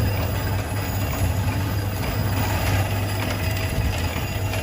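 Die-making machine running steadily: a strong, steady low hum with an even hiss over it.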